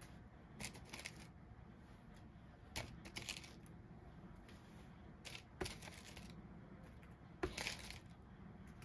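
Metal kitchen tongs clicking and scraping, with paper towels rustling, as fried fish fillets are picked up and set down on tortillas: a few brief, scattered handling noises with quiet between them.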